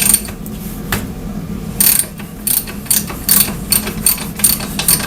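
Air ratchet on the bottom bolt of a KTM fork leg, fired in about ten short, irregular bursts, with one longer burst about two seconds in, trying to break the bolt loose.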